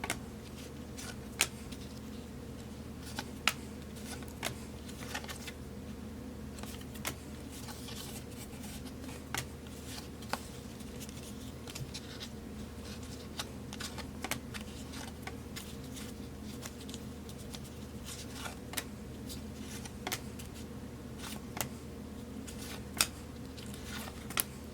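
Trading cards being handled and flipped through one by one: soft scattered clicks and flicks of card stock, over a steady low hum.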